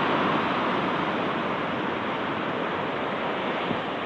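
Ocean surf washing steadily on the shore, easing off a little, with wind rumbling on the microphone.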